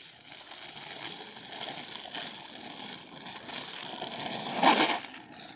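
Skateboard wheels rolling over rough asphalt, a continuous gritty rumble that grows louder as the board comes close, with a louder scraping rush near the end.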